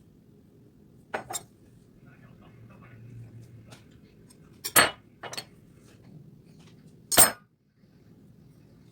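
Small hard objects clicking and knocking against a tabletop: a handful of short sharp knocks, some in quick pairs, the loudest about halfway through and another near the end.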